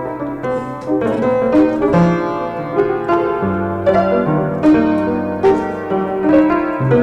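Piano music: a melody of struck notes over sustained bass notes.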